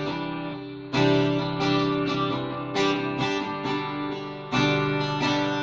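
Guitar music: strummed chords ring on, with new chords struck hard about a second in and again near the end.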